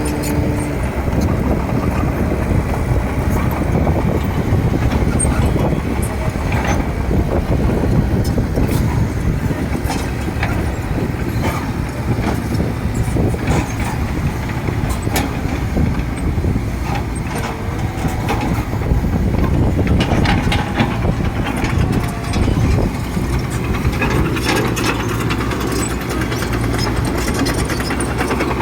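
Heavy diesel earthmoving machinery running at a worksite. A steady low engine rumble is broken by scattered short clanks and knocks.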